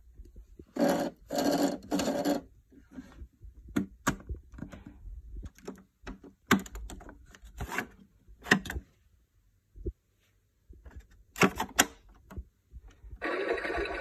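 Hard plastic parts of a Keenway My Home toy washing machine being handled: three short scraping rustles, then a string of sharp plastic clicks and snaps as the door and the detergent drawer are worked. About a second before the end the toy is switched on and its built-in speaker starts a steady, loud sound effect.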